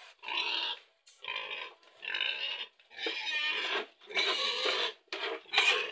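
Domestic pig in its pen giving a run of rough calls, about seven in a row, each under a second long with short pauses between.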